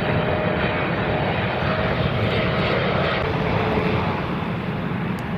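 Boeing 777 jet airliner flying low on approach: steady engine noise with a faint whine that drops lower a little past three seconds in.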